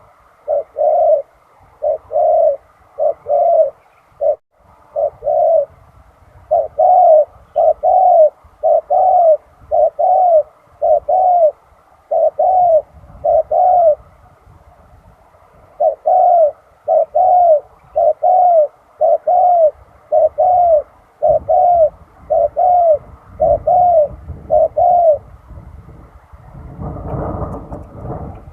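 Spotted dove cooing: loud, short coos about two a second in long runs, broken by brief pauses. A low rumbling noise builds near the end.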